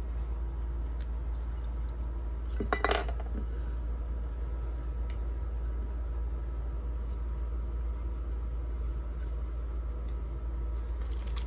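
Small clear acrylic card stands and plastic-sleeved cards being handled and set on a table: faint light plastic clicks, with one short louder clatter about three seconds in, over a steady low hum.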